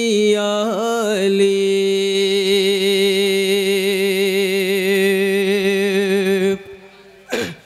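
A male voice singing a devotional manqabat refrain, drawing out the word "Ali" as one long held note with vibrato for about five seconds, breaking off about six and a half seconds in.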